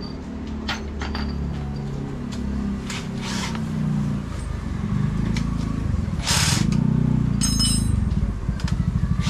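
Motorcycle engine running, its speed rising and falling and growing louder about halfway through. A few sharp knocks and a short metallic ring come over it near the end.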